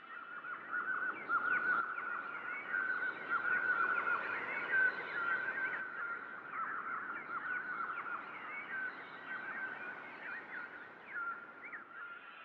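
A flock of small birds chirping and twittering together, many short quick calls overlapping without a break.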